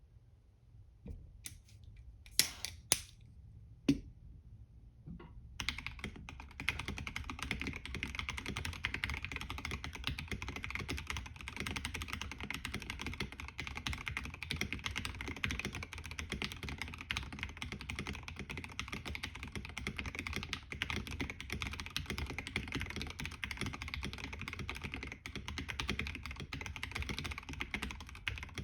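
Mechanical keyboard, a KBD67 Lite with silicone pour, lubed JoinInKeys Matcha switches and Drop MT3 Camillo keycaps. A few separate clicks and knocks come over the first five seconds, three of them sharp and loud. From about six seconds in comes steady fast typing.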